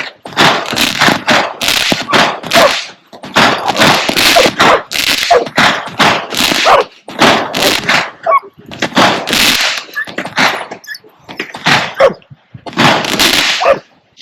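Fireworks going off in a rapid string of loud bangs and crackles, about one a second, with a frightened dog barking among them.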